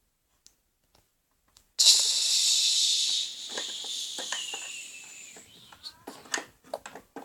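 Toilet flush for a toy toilet: a sudden hissing rush of water noise about two seconds in, fading away over the next few seconds. Small clicks and knocks of plastic toys being handled before and after it.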